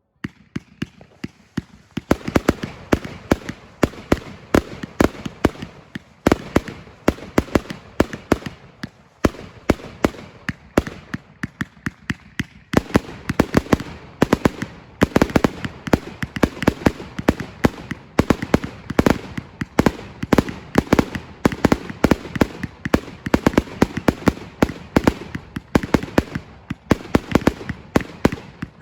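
New Year's Eve fireworks going off in a rapid, continuous barrage of sharp bangs and cracks, several reports a second. The sound cuts in abruptly with a few scattered shots, then thickens into steady firing about two seconds in.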